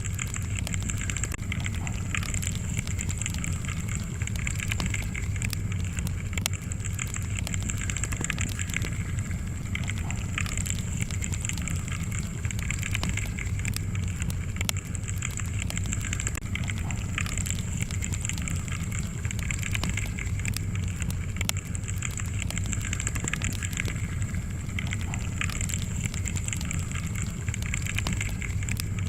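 Wood fire crackling: many small snaps and pops scattered over a steady low rumble of the flames.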